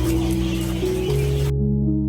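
Soft background music of slow, held notes changing pitch every half second or so, over a hiss of outdoor ambience that cuts off suddenly about one and a half seconds in.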